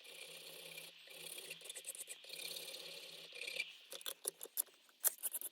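Hand scraping and rubbing of an abrasive on a vintage steel screwdriver: a steadier rub for the first few seconds, then a run of quick, uneven strokes.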